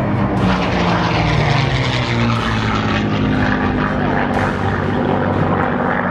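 Noorduyn Norseman's Pratt & Whitney R-1340 Wasp radial engine and propeller running steadily in flight, a continuous engine note that sags slightly in pitch over the first couple of seconds.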